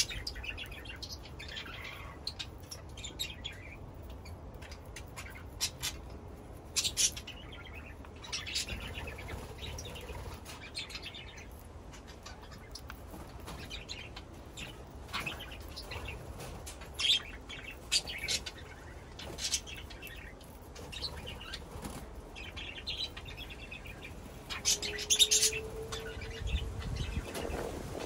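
Budgerigars chirping in short, scattered high calls, with occasional wing flutters.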